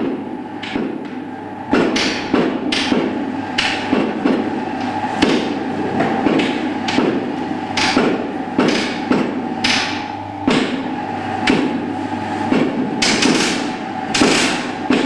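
Hammer blows striking repeatedly, about two a second in an uneven rhythm, over a steady hum.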